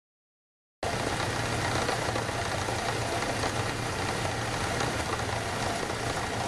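Ford Ranger engine idling steadily, cutting in just under a second in.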